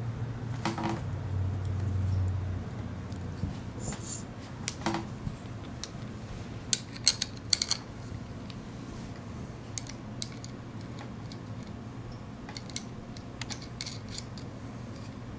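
Small clicks and rattles of Makeblock aluminium brackets, screws and wheel parts being handled and fitted together by hand, with a brief low rubbing rumble early on and a cluster of sharper clicks about halfway through. A steady low hum runs underneath.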